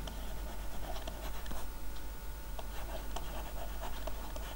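Stylus writing on a tablet screen: a run of light taps and scratches over a faint steady hum.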